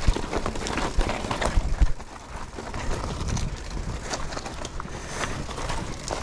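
Mountain bike descending a rough trail: tyres rolling over dirt and rock, the bike rattling with irregular knocks from impacts, and wind rumbling on the microphone.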